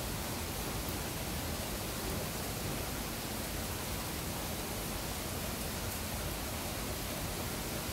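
Steady, even hiss of falling water, such as rain on foliage and a wet wooden walkway.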